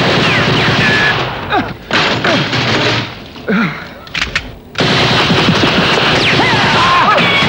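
Dense, rapid automatic-weapon gunfire from a film battle scene: heavy firing, a lull of about three seconds with a few single shots, then heavy firing again from about five seconds in.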